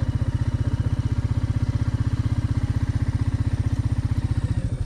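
Motorcycle engine running at a steady low speed, an even, rapid beat. Just before the end the beat slows and becomes less even as the revs drop.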